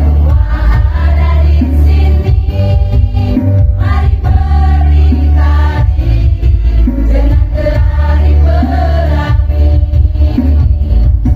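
Women's choir singing together over backing music with a heavy bass.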